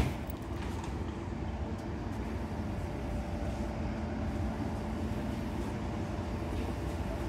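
DB Class 420 S-Bahn electric multiple unit standing at a platform, its on-board equipment giving a steady hum over a low rumble.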